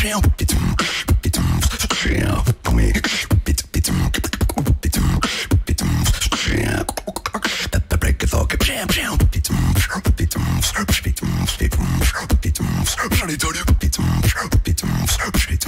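Solo beatboxing: one man's mouth and lips making deep bass hits and sharp kick and snare clicks in a dense, continuous groove.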